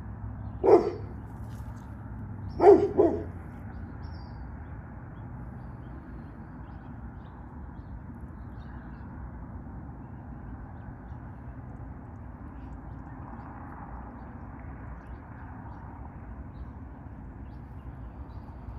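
A dog barking three times: a single bark, then two in quick succession about two seconds later, over a steady low background noise.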